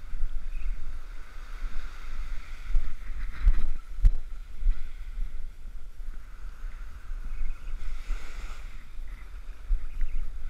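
Strong wind buffeting the microphone in uneven gusts, over the steady hiss of small surf washing up the beach.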